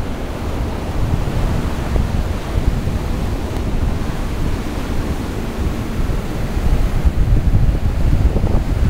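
Atlantic surf breaking and washing up the beach, with wind blowing across the microphone and adding a steady low rumble.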